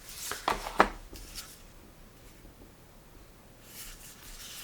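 Hands handling a video doorbell and its removable battery pack: a few sharp clicks within the first second, then a soft rustle near the end.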